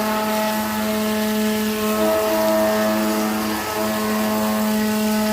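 CNC router spindle cutting stone: a steady whine with a hiss over it, dipping briefly in pitch twice.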